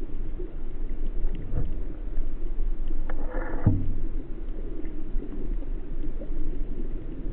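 Muffled, steady sea-water noise, with a sharp thump about three and a half seconds in.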